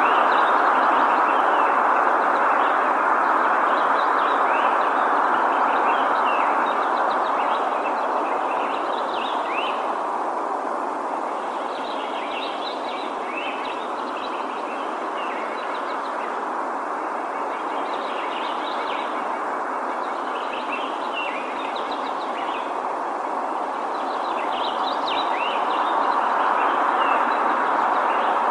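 Small birds chirping, quick high notes in short bouts every few seconds, over a steady rushing background noise.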